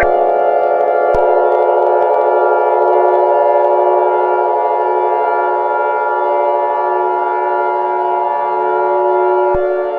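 Civil defense siren holding a steady, loud wail made of several tones sounding at once; one of its upper tones drops out near the end.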